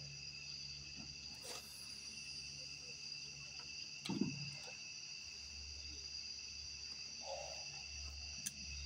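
Steady chorus of night insects, several shrill tones held without a break. A short, soft thump about four seconds in.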